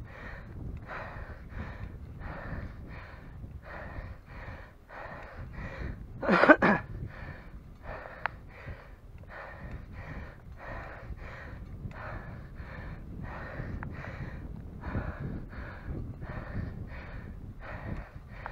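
A cyclist breathing hard and fast from exertion, each breath in and out coming about every half second. About six and a half seconds in comes one much louder, strained, voiced exhalation.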